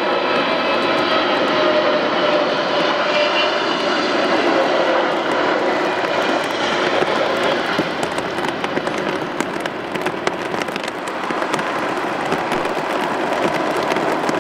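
Twin-engine Boeing 777 jet airliner landing: the turbofan engines whine with several tones that fall slightly in pitch as it passes. In the second half this gives way to a broad, steady rushing noise with a crackle.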